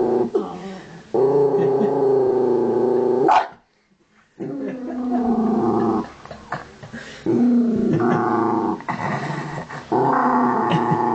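Miniature dachshund growling in long stretches, each one to two seconds, with short breaks between them. She is guarding a pig's ear she has been given to chew. The growling drops out briefly about three and a half seconds in.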